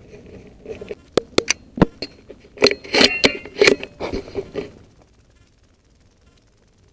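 Handling noise from an air rifle: a few sharp clicks about a second in, then a busier patch of clicks and rustling in the middle, and quiet after that.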